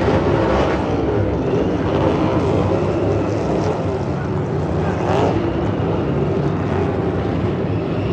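Several race car engines running at speed, a pack of cars going by with their engine notes overlapping and wavering. About five seconds in, one car's engine note rises and falls as it passes close.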